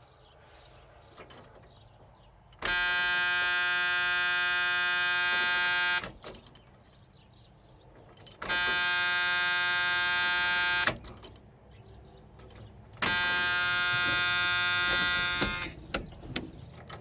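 Dash warning buzzer of a 1977 Ford F-100 sounding three times, each buzz steady and about three seconds long, with small key and switch clicks between, as the key is worked in a newly fitted ignition switch.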